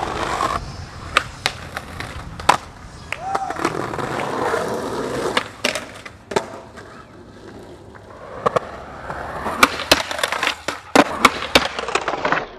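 Skateboards rolling on concrete, with repeated sharp clacks of boards popping and landing and trucks hitting ledges, and grinds scraping along concrete ledges. The clacks come thickest in the last few seconds.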